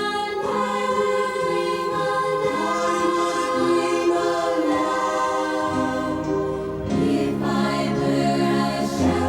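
A choir sings a sacred Christmas hymn in long, held chords. Lower parts come in a little past halfway.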